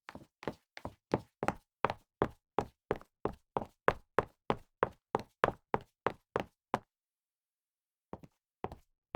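Footsteps of someone walking quickly, about three steps a second, each a short sharp knock. They stop about seven seconds in, and after a second of silence start again fainter, growing louder.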